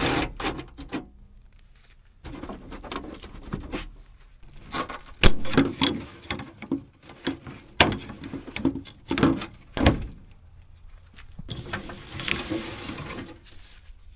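Metal knocks, clanks and rattles as a truck's windshield wiper linkage and cowl parts are worked loose and lifted off. Near the end there is a steadier noisy stretch of about two seconds.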